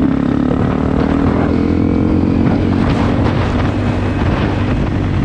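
Single-cylinder four-stroke motorcycle engine running at a steady speed while riding, with wind buffeting the microphone.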